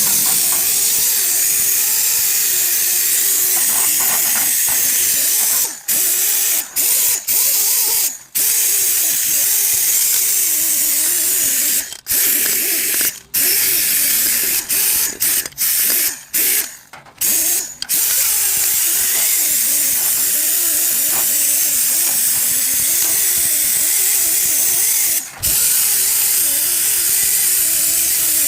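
A steady, loud hiss, like air or spray under pressure, that stops for brief moments several times in the middle of the stretch and once more near the end.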